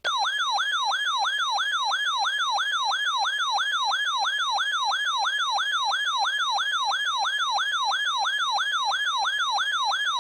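Electronic siren-style alert tone signalling a severe weather warning: a fast warble of falling sweeps, about three a second, that starts abruptly and keeps an even level.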